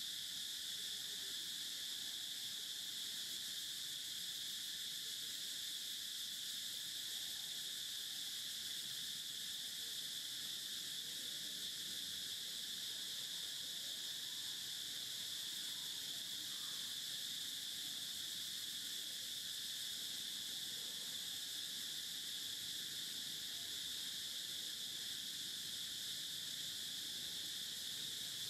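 Steady insect chorus: a continuous high-pitched drone that does not change or break.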